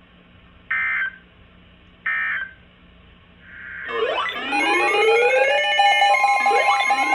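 Emergency Alert System data bursts: two short, shrill digital squawks about a second and a half apart. About four seconds in, a loud electronic alert tone starts, a layered sound of repeated rising sweeps over steady high tones.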